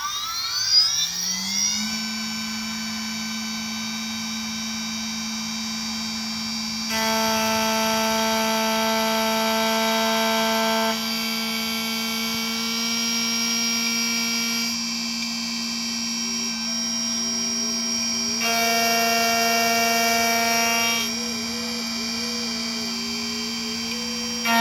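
Xhorse Dolphin key-cutting machine running its cutting calibration: the motor whine rises in pitch at the start and settles into a steady whine. Extra higher tones cut in and out in spells as the machine moves through the cut, with a wavering tone in the later part.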